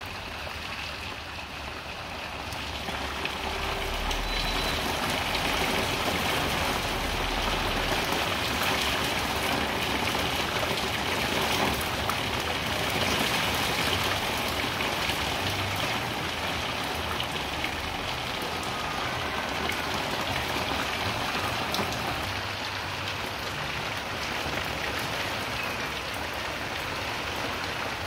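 Heavy rain pouring steadily onto a wet tiled patio and garden furniture: a constant hiss of the downpour with countless small drop splashes. It grows louder a few seconds in.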